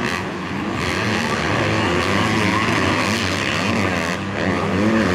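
Motocross dirt bike engines revving hard as the bikes race around the track, several engines overlapping and their pitch rising and falling.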